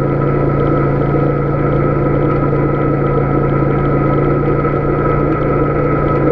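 Polaris Sportsman 570 ATV's single-cylinder engine running at a steady speed as the ATV rides along a gravel dirt road.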